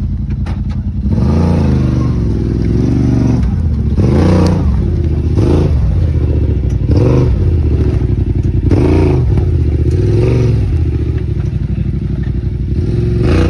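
Side-by-side UTV engine revving up and falling back again and again as the machine is throttled in short bursts to crawl over a log.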